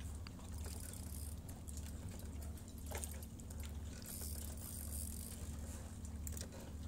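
Spinning reel being cranked as a fish is played on the line, its gears ticking lightly, over a low, pulsing hum.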